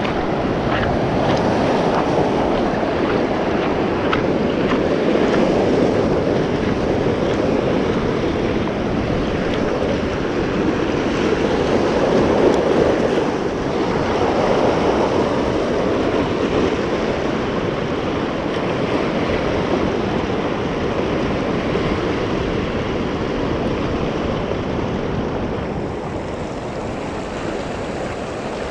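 Surf washing over a coral reef edge, a steady rushing that swells and eases, with wind buffeting the microphone.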